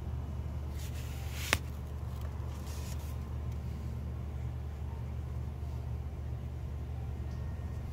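Steady low background hum, with one sharp click about a second and a half in and faint rustling.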